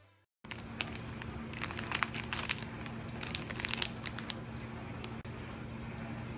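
Clear plastic bag of cinnamon sticks crinkling as it is handled: a run of sharp crackles for about three seconds, over a steady low hum.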